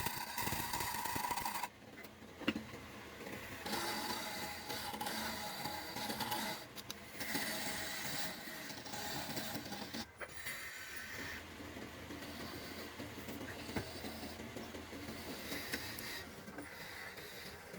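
A small electric power tool's motor running with a steady whine, its pitch and loudness shifting abruptly several times.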